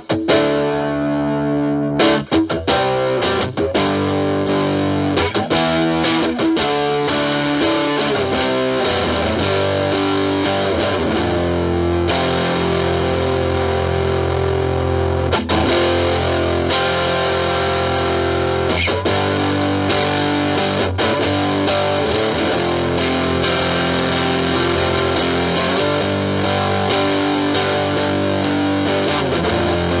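Stratocaster with single-coil pickups played through an Electro-Harmonix Germanium 4 Big Muff Pi, its overdrive and distortion sides both on, into a Marshall Valvestate amp's clean channel. It opens with quick, choppy picked notes and chords, then settles about eight seconds in into thick, sustained fuzz chords that change every couple of seconds.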